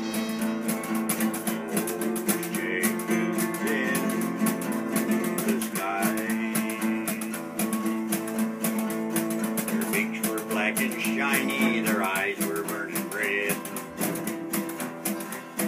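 Acoustic guitars strumming chords in a steady rhythm, the instrumental lead-in to a folk song. A melody line that bends in pitch runs above the chords, strongest in the second half.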